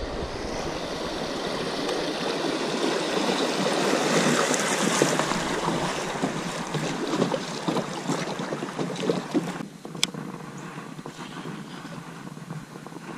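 Kayak paddle strokes splashing in the river, with water rushing past the hull through a shallow riffle. The paddling stops about ten seconds in, followed by a single sharp click and quieter lapping water.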